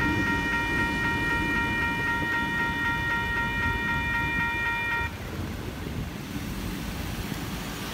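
WCH electronic level-crossing bell ringing steadily, then cutting off about five seconds in as the crossing signals switch off after the train has cleared. A low rumble fades under it, leaving a steady hiss of rain on the wet road.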